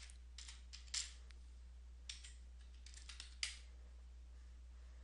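Computer keyboard keys clicking in an irregular run of keystrokes that stops about three and a half seconds in, over a steady low hum.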